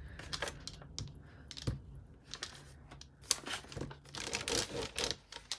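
Crumpled brown packaging paper crinkling and rustling as it is handled, with irregular light clicks and taps.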